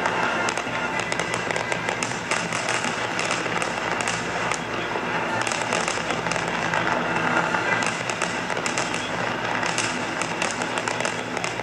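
Fireworks crackling, a dense, continuous stream of rapid small pops and crackles without any single big boom.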